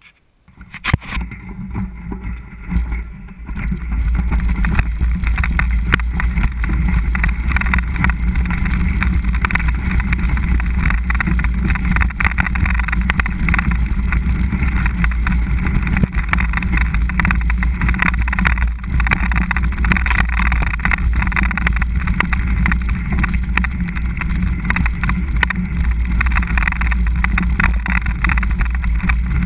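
Wind buffeting a GoPro microphone while riding a mountain bike, over a steady rumble and rattle of the bike rolling along the trail. It starts quieter and uneven for the first few seconds, then runs loud and steady.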